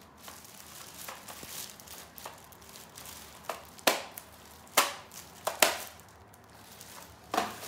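Handling of plastic vacuum-cleaner parts and their packaging: light rustling with several sharp plastic clacks and knocks, most of them in the second half.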